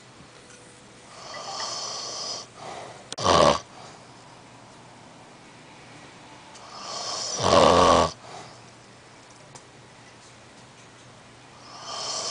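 An old man snoring loudly in his sleep: a snore every four to five seconds, each building up and ending in a harsh rattling rasp, with quiet between. The third snore begins near the end.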